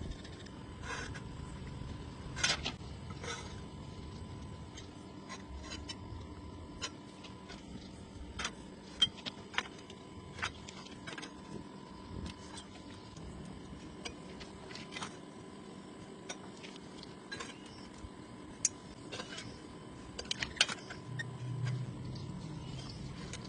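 Scattered light clicks and taps at irregular intervals, over a faint steady hum.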